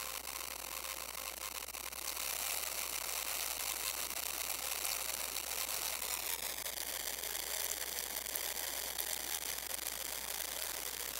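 Modular synthesizer putting out a harsh, noisy high-pitched electronic texture with many buzzing overtones. It grows louder about two seconds in, and its tones slide lower about two-thirds of the way through.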